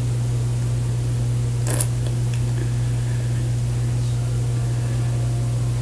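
Steady low electrical-sounding hum with faint hiss, and one brief rustle a little under two seconds in.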